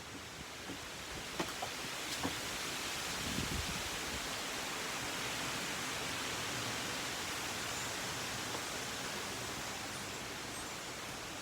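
A steady hiss of even noise that swells slightly and eases off, with a few faint clicks in the first two seconds and a short low thump a little after three seconds in.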